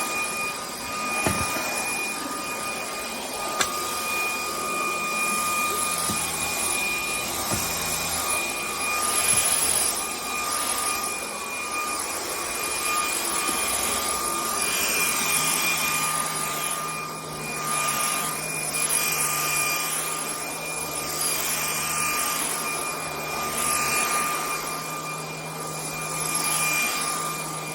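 GOLDEGGS 550 W cordless stick vacuum cleaner running: a steady high motor whine over the rush of air, swelling and fading as the suction changes.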